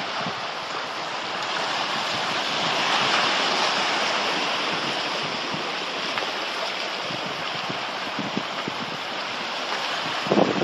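Small sea waves washing in over rocks and tide pools: a steady rush of surf that swells about three seconds in and eases again. A brief low thump near the end.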